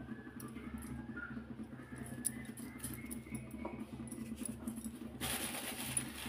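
Light clicks and rustles of ingredients being added to a steel mixing bowl, with a louder rustling hiss about five seconds in, over a steady low hum.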